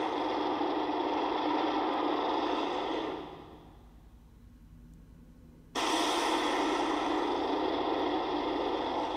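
Godzilla sound effect from the Heisei-era set: a long, rushing, hiss-like blast that fades out about three seconds in, then after a pause a second one that starts abruptly near the six-second mark.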